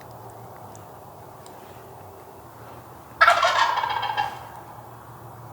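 Wild turkey gobbler gobbling once, close by: a single loud gobble about three seconds in, lasting about a second.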